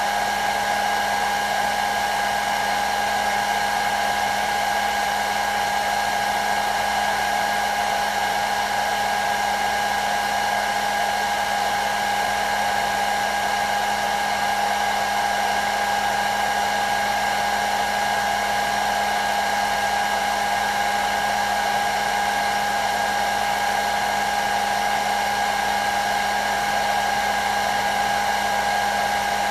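Hair dryer running steadily: a constant rush of blown air with an unchanging high whine from the motor and fan over a low hum.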